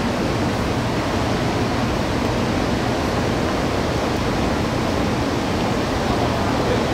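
Steady, even rushing noise of an underground railway platform, with a faint low hum beneath it.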